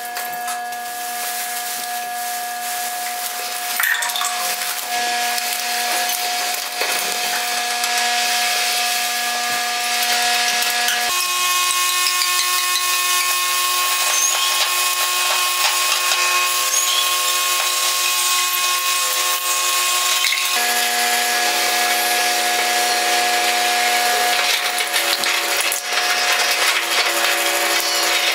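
Contact-miked styrofoam sound sculpture being scraped and rubbed, amplified into dense scratchy noise over several steady held drone tones from a live loop. The drone tones jump to a new set of pitches about eleven seconds in and again about twenty seconds in.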